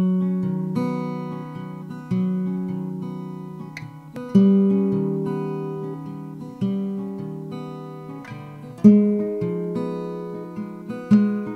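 Background music: acoustic guitar chords, each struck and left to ring out, about every two seconds.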